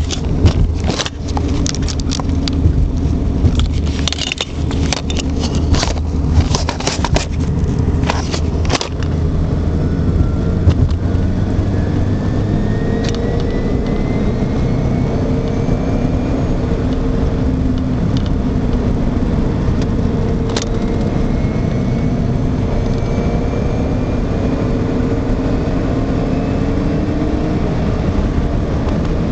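Subaru Impreza WRX STI's turbocharged flat-four engine running on its stock exhaust, a steady low hum. Sharp clicks and rattles sound over it for the first nine seconds or so; after that the engine note runs on alone, with faint tones rising slowly.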